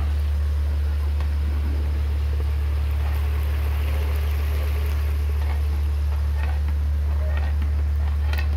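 A loud, steady low hum, with a few faint clicks and clatters over it.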